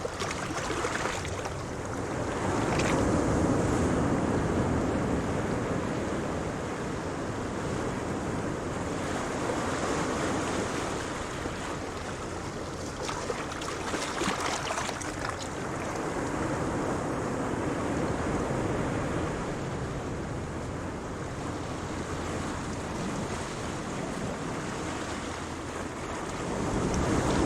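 Ocean waves breaking and washing ashore, a continuous rushing surf that swells and ebbs every several seconds, with hissing foam as each wave spreads.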